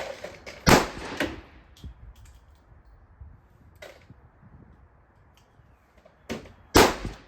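Handgun shots: two loud reports, about a second in and near the end, with fainter, sharper cracks between them.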